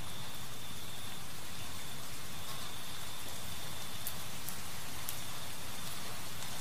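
Steady rain sound effect, an even hiss with a few faint ticks.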